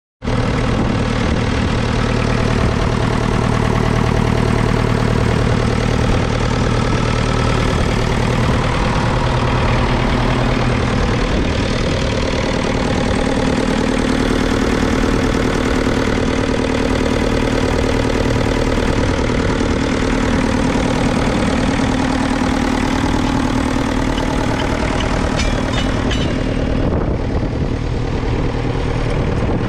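1959 Ferguson FE35's 2.3-litre four-cylinder diesel engine idling steadily.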